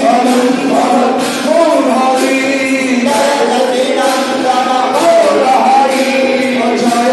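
A crowd of devotees singing a devotional kirtan together, with sharp hand claps or cymbal strokes marking the beat.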